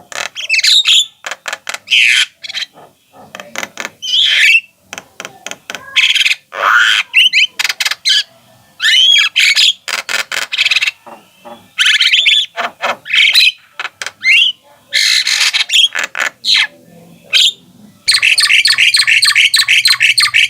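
Javan myna singing and calling: a string of harsh squawks, clicks and whistled notes, ending in a fast run of evenly repeated notes.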